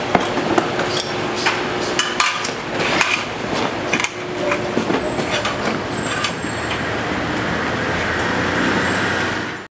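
Workshop noise: a steady machinery drone with irregular knocks and clanks of tools and materials. It cuts off suddenly near the end.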